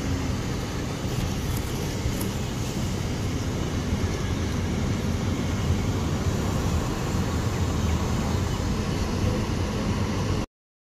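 Steady wind and road noise of a moving car with its windows open, heaviest in a low rumble; it cuts off abruptly near the end.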